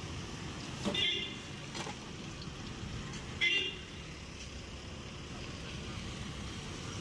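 Steady road-traffic rumble with a vehicle horn giving two short, high-pitched toots, about a second in and again about three and a half seconds in.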